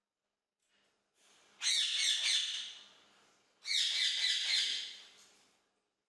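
Indian ringneck parakeet giving two drawn-out high calls, each about a second and a half long, starting about two seconds apart.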